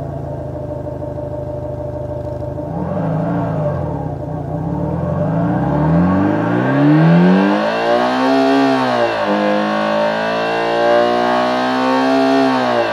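Homemade optical engine-sound simulator, a steel plate set vibrating to imitate a Subaru EJ20 boxer four with equal-length exhaust, being revved by hand. It runs low at first, revs up hard about five seconds in, drops sharply just after the peak, then climbs back to high revs near 8000 rpm.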